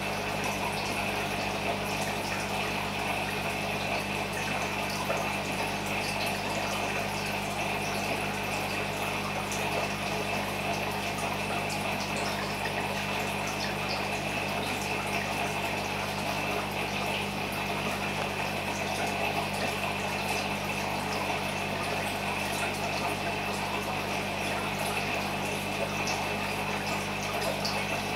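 Aquarium filter pump running steadily: a low hum under a constant wash of moving water.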